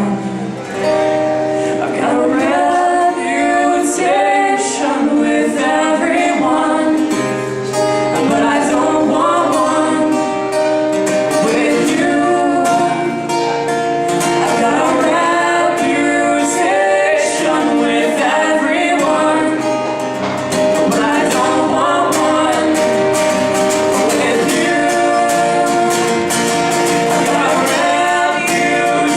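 Music: a song with singing over sustained instrumental chords.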